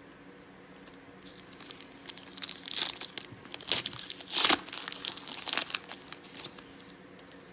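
Foil wrapper of a trading-card pack crinkling and tearing in irregular bursts over several seconds, loudest about halfway through.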